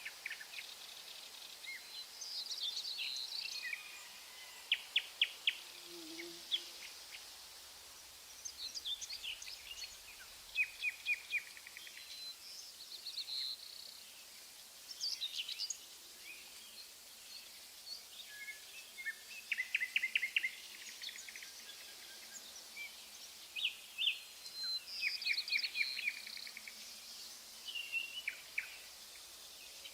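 Songbirds chirping and singing, with short rapid trills of quick repeated notes scattered throughout, over a faint steady hiss of outdoor background noise.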